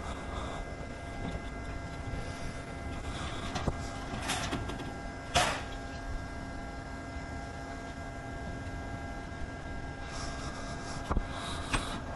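A steady mechanical hum made of several constant tones, broken by a few brief knocks or scrapes, the loudest about five seconds in.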